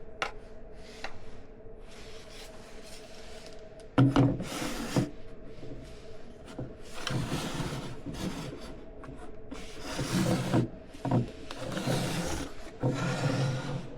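Unboxing handling noise: packaging and parts being rubbed, scraped and rustled in irregular bursts, with one sharp knock about four seconds in.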